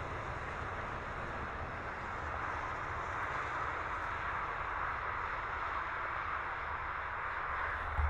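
Steady outdoor background noise with a low rumble underneath, even throughout.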